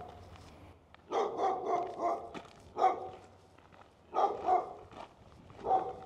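A dog barking repeatedly, in short barks that come singly and in small groups at irregular intervals.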